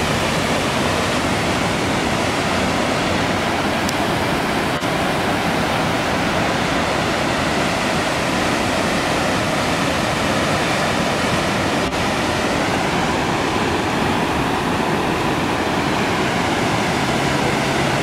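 Firehole Falls: the Firehole River's whitewater pouring over a rock ledge into the canyon, a loud, steady rush of falling water.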